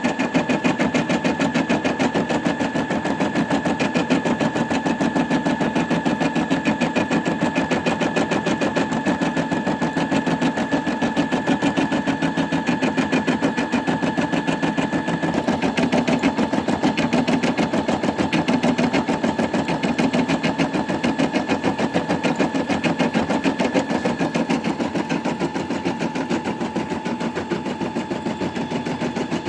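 Brother Innov-is M280D embroidery machine stitching out a design: a fast, even needle clatter over a steady motor whine, easing off slightly near the end.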